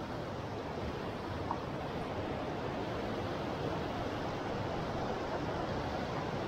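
Steady rush of a shallow mountain stream pouring over boulders and small riffles.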